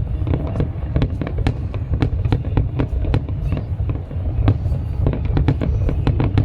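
Fireworks display going off: rapid, irregular sharp bangs and crackles, several a second, over a steady low rumble.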